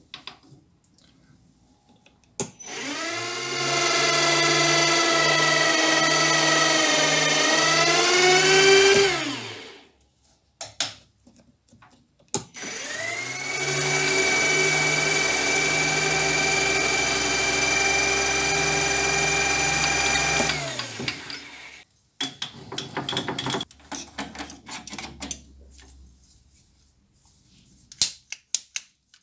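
Small benchtop metal lathe's spindle motor running up to speed and turning while a twist drill in the tailstock chuck is fed into the part, in two runs of several seconds each that wind down when switched off; the pitch sags and recovers near the end of the first run as the drill takes load. Afterwards, clicks and knocks of the drill chuck being handled.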